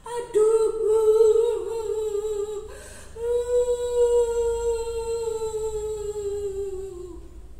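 A woman's voice acting out a child crying: two long, high wails, the second longer and sliding down in pitch as it fades.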